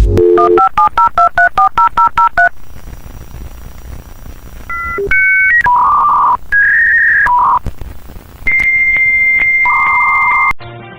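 A telephone line being dialled: a brief dial tone, then about ten quick touch-tone (DTMF) digits. After a pause come dial-up modem handshake tones: short two-tone chirps, warbling data tones, and a long steady high answer tone from about 8.5 s that cuts off abruptly.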